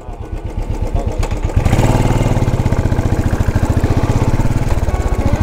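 Royal Enfield Desert Storm's single-cylinder engine running with an even, rapid beat, the throttle opening about a second and a half in as the bike pulls away, easing slightly near the end.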